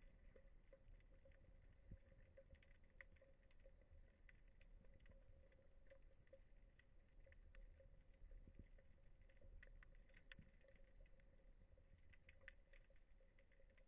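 Near silence: faint underwater ambience picked up by a camera in its housing, with scattered faint clicks and crackles over a low, steady hum.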